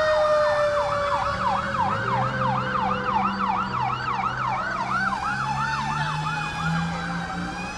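Fire engine sirens passing close: one in a fast yelp of about three sweeps a second that slows into a longer wail near the end, layered over a steady siren tone slowly falling in pitch. A low steady drone runs underneath from about a second and a half in.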